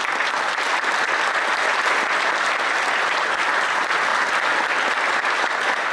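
A large audience clapping in dense, steady applause.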